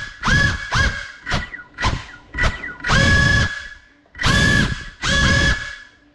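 Cinelog35 FPV cinewhoop drone's motors and propellers whining in a string of short throttle punches, the pitch falling quickly each time the throttle is chopped. Near the end come a few longer bursts at a steady pitch.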